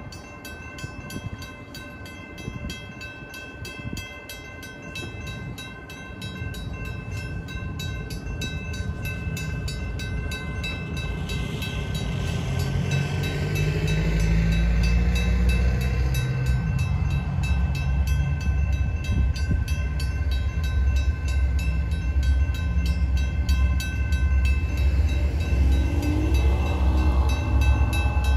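Railroad crossing warning bell ringing in a steady, even rhythm as the crossing flashers and gates activate. A deep rumble from the approaching freight train's diesel locomotives builds from about halfway and grows loud.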